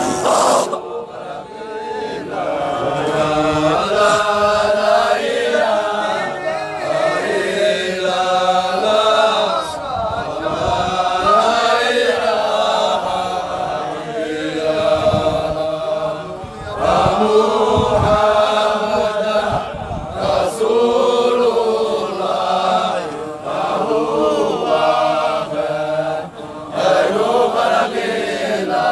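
A group of voices chanting Sufi dhikr (religious remembrance chant) together in a continuous rhythmic chant.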